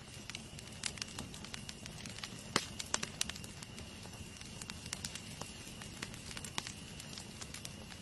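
Wood campfire of stacked logs crackling, with frequent irregular sharp pops over a soft steady hiss of burning.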